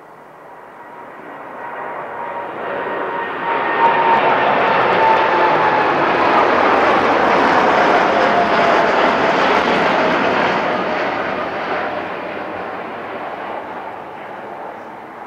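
Boeing 787 jet airliner passing low overhead on final approach, its engine roar building, peaking and fading away. A thin whine in the roar drops slowly in pitch as it goes by.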